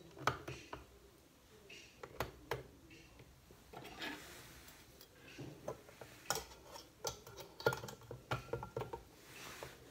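Small stainless-steel bowls and utensils being handled: scattered light clinks and knocks of metal against metal and the tabletop as a bowl of melted cream phase is lifted out of the bain-marie, with a short metallic ring near the end.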